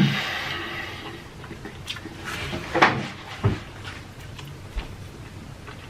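Close-miked eating sounds: mouth noises and handling of food, with a soft hiss fading out at the start and a few short sharp clicks and knocks.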